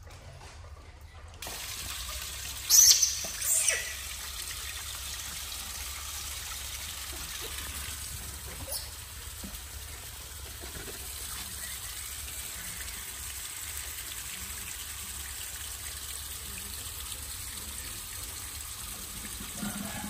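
Water running in a steady trickle, starting about one and a half seconds in, with two short loud sounds, likely splashes, about three seconds in.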